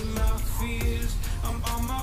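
Background music: a melody of held notes stepping in pitch over a pulsing low beat.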